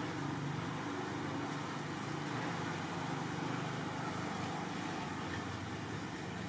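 Steady low engine rumble under an even hiss, like motor traffic running without a break.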